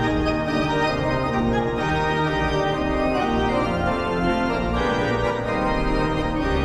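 Background organ music: sustained chords on an electric organ, changing every second or so.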